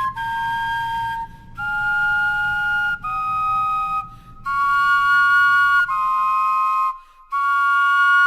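Vegetable flutes playing a slow two-part melody. The notes are held about a second each, with short breaks between them.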